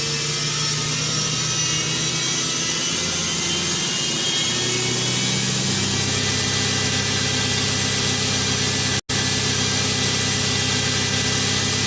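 Emergency alert alarm broadcast: a loud static-like hiss over low droning tones that change pitch a few times, cutting out for an instant about nine seconds in.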